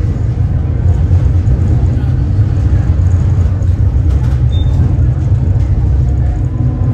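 Tram running along its rails, a steady low rumble of wheels and running gear heard from inside the car.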